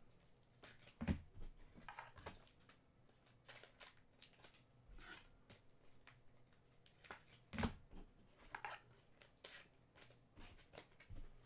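Trading cards being handled and sorted on a table: faint, irregular taps, clicks and soft rustles of card stock and sleeves.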